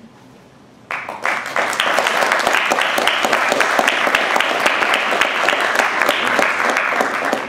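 Audience applauding: many hands clapping together, starting suddenly about a second in, holding steady, then fading near the end.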